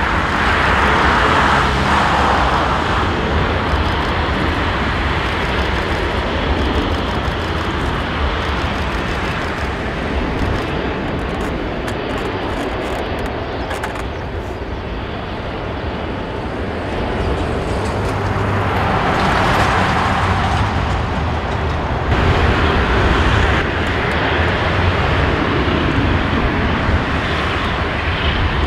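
Airbus A380-841's four Rolls-Royce Trent 900 turbofans running at low thrust as the jet taxis, a steady jet rumble and hiss. The whine swells briefly near the start and again about two-thirds of the way through.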